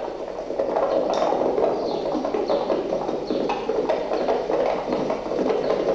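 Horses galloping, a rapid clatter of many hoofbeats on a dirt track, with short high falling sounds now and then over it.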